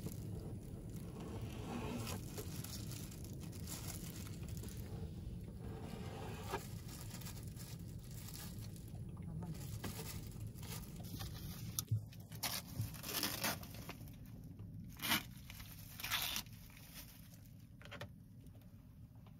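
A knife slicing raw tuna on a plastic cutting board, with a disposable plastic glove crinkling, over a low steady hum. Past the middle come several short, sharp crinkles and clicks as the knife is set down and a plastic food pack is handled.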